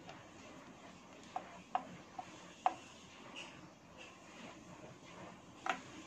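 Oil pastel sticks being handled: a few small sharp clicks, four close together in the first half and one near the end, over a faint hiss.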